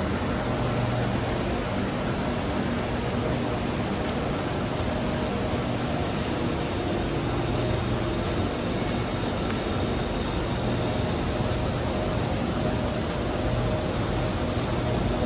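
Steady city background hum of distant traffic and building machinery such as air-conditioning, even throughout, with a few faint steady tones and no distinct events.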